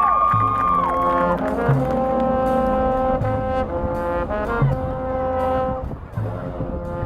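A high school marching band's brass section playing long held chords. Short low notes or drum hits land about every one and a half seconds underneath.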